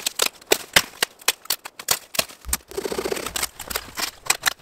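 Hatchet chopping and snapping thin branches in quick succession: a string of sharp cracks and knocks, roughly three a second, with a short rustle of brush about halfway through.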